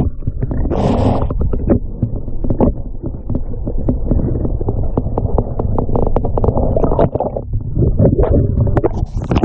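Muffled underwater rushing and rumbling of water around a camera submerged inside a mesh net trap as the trap is moved, with many small knocks and clicks throughout.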